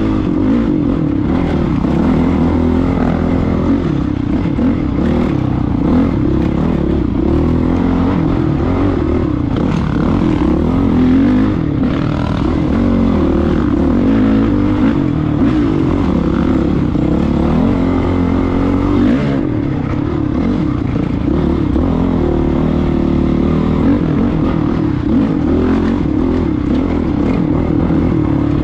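Dirt bike engine running under varying throttle, its pitch rising and falling continually, with short clattering knocks from the bike over rough trail.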